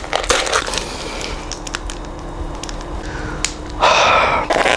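Crisps being crunched and their foil packet crinkling, a run of sharp crackles with a louder burst about four seconds in.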